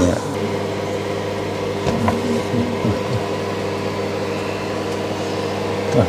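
Samsung MG30T5018 grill microwave oven running on its Grill Fry combination setting, giving a steady hum.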